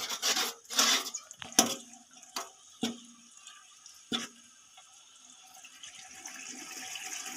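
Metal spatula scraping and knocking against a metal pan as ginger-garlic paste is stirred in hot oil: several strokes in the first three seconds, one more about four seconds in. Then the paste sizzles in the oil, growing steadily louder through the second half.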